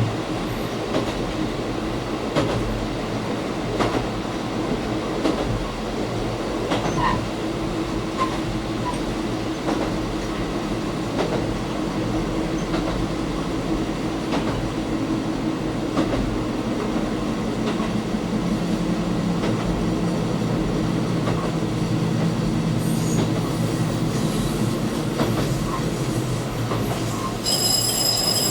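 KiHa 185 diesel railcar running along the line, heard from the front of the train: a steady rumble of engine and wheels with scattered rail-joint clicks. The engine note drops to a lower pitch about two-thirds of the way through. A high chime starts near the end.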